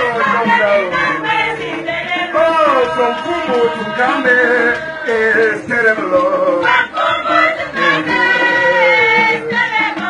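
Group singing: a man leads a song and a chorus of women's voices sings with him, several voices at once, over frequent short percussive strikes.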